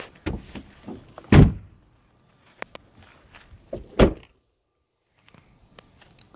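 A car door shutting with a heavy thud about a second and a half in, followed by a second thud about four seconds in, with lighter knocks between.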